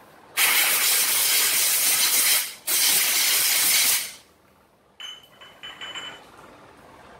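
Two blasts of compressed air from an air blow gun, each about two seconds long with a short break between, blowing dust out of a scooter's open CVT transmission case. A few faint clicks follow.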